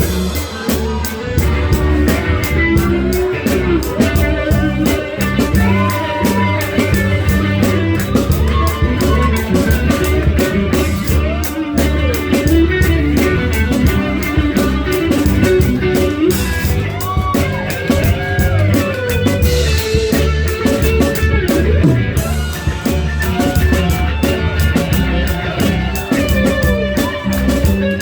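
A live soul band plays an instrumental passage: a drum kit keeps a steady beat under the bass while a lead guitar line runs over the top with bent, sliding notes.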